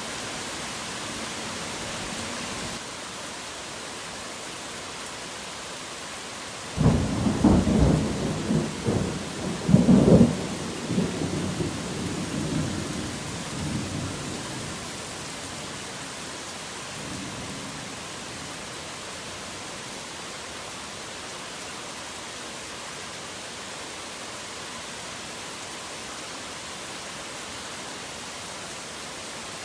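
Steady rain with a clap of thunder about a quarter of the way in; it rumbles loudly for several seconds, swells again, then fades back under the rain, with a faint further rumble a little later.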